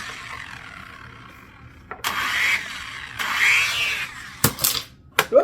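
A toy RC helicopter's small electric motors whirring the rotors up in two short bursts, one about half a second long and one about a second long, as its power is checked. Two sharp knocks follow near the end.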